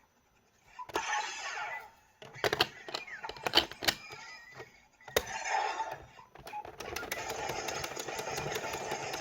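Electronic sound effects from the Geartlinger toy gun's speaker: a click, a whooshing sweep, a run of sharp shot-like blasts, then a longer crackling effect with rapid ticking, the attack sequence that follows its finisher call.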